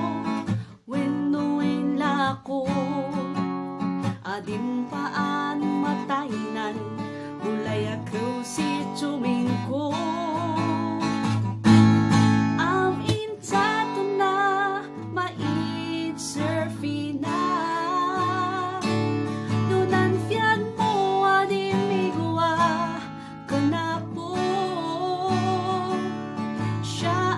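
A woman singing a slow song with vibrato, accompanying herself on a strummed acoustic guitar.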